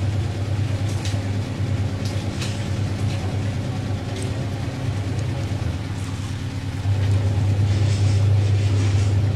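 A steady low mechanical hum that gets louder about seven seconds in, with scattered light clicks.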